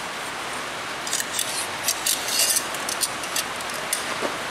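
Sharp metallic clicks and light scrapes as a brake line and bending tool are handled, most of them bunched together in the middle. A steady hiss of rain on a tin roof lies underneath.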